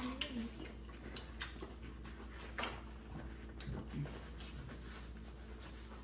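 Faint, sporadic eating and table-handling sounds: scattered small clicks and crackles of food being bitten and handled, over a steady low hum.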